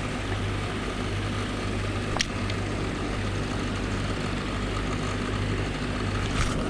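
Steady mechanical drone of pond paddlewheel aerators running, their motors humming with water churning, and a single short click about two seconds in.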